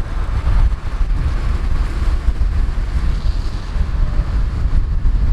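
Wind buffeting the camera's microphone: a loud, uneven low rumble with a hiss over it.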